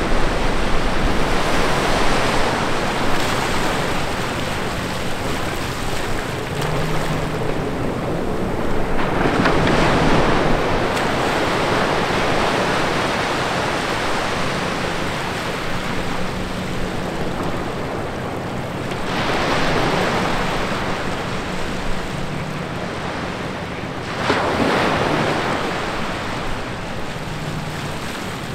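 Small ocean waves breaking and washing up between rocks onto wet sand, in a steady wash that surges about four times.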